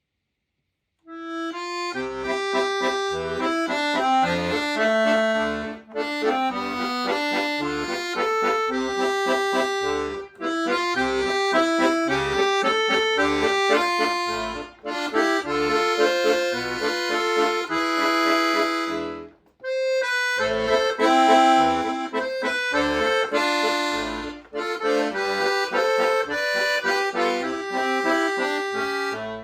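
An accordion playing a melody over low bass notes. It starts about a second in, with short breaks between phrases and one clear pause near two-thirds of the way through.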